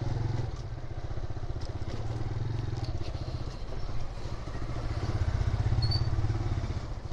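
Motorcycle engine running at low speed along the lane, its firing heard as a fast, even low pulse, getting louder about five seconds in.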